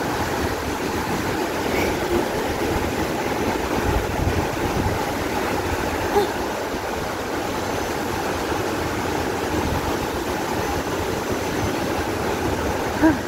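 Waterfall's falling water: a steady, even rush with a low rumble underneath.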